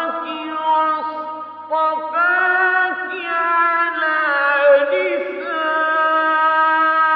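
Male Quran reciter's voice in melodic, mujawwad-style recitation, drawing out long held notes that turn slowly in pitch, with short breaks between phrases.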